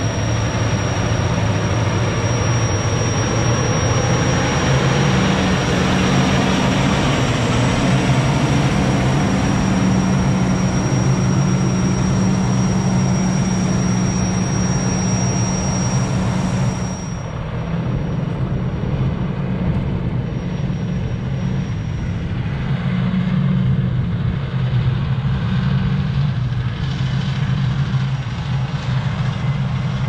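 Heavy diesel farm tractor engines running at a steady drone, with a thin high whine over it for the first half. About halfway the sound changes abruptly, the high part drops away and the engine drone carries on.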